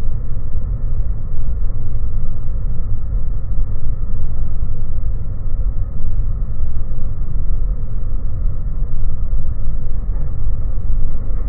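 Bombardier Q400 landing, its turboprop engine and runway noise slowed down for slow motion: a deep, steady rumble, pitched down and muffled, with no high sounds.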